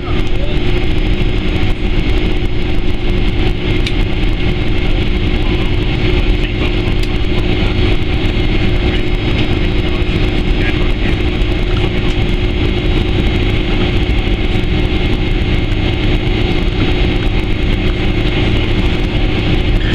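Steady jet engine and cabin noise inside a Boeing 767-300ER as it taxis, with a constant low hum and a steady drone underneath.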